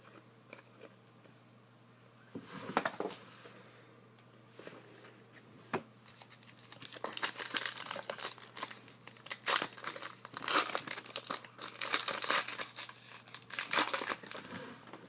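Plastic wrapper of a trading-card pack crinkling as it is torn open and crumpled, in a short burst about two and a half seconds in, then dense rustling from about six seconds in until near the end.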